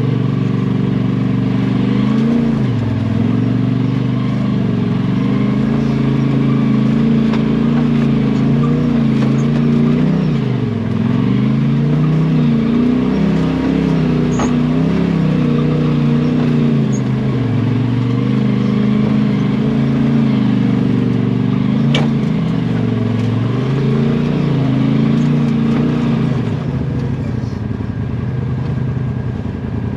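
Side-by-side UTV engine running under varying throttle, its pitch rising and falling again and again as it climbs and eases over the trail, with a couple of sharp knocks from the vehicle along the way.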